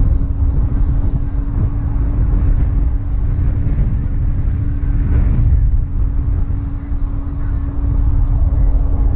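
Low wind rumble on a helmet-mounted camera's microphone while riding an electric bike, with a steady hum under it.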